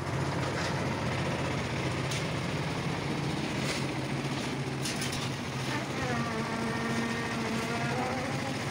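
Engine-driven concrete mixer running steadily, with a handful of short clatters of aggregate and metal pans being loaded. Over the last few seconds a drawn-out pitched sound rises above the running engine.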